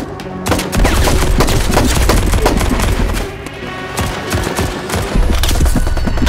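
Rapid bursts of automatic gunfire sound effects over background music, easing off for a moment about halfway through before picking up again.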